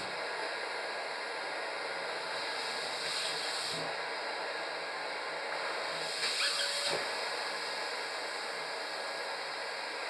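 Canister vacuum cleaner running steadily through its hose and floor nozzle. The suction rush gets louder and higher twice, about three and six seconds in, as T-shirts are sucked off the carpet into the nozzle. The second rush ends about seven seconds in with a short whistle and a thump.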